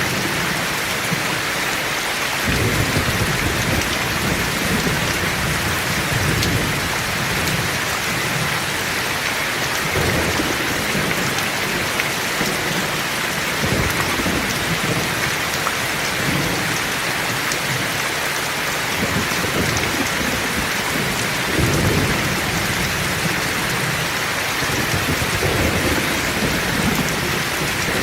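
Heavy rain falling steadily, with low thunder rumbling again and again every few seconds underneath it.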